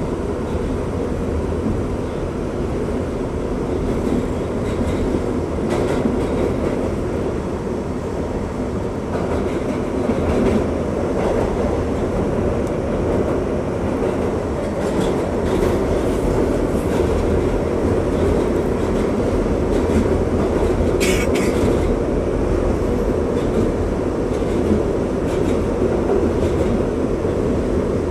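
New York R62A subway car running through a tunnel, heard from inside the car: a steady rumble of wheels on rails, with occasional clicks at the rail joints and a short sharp noise about three quarters of the way through.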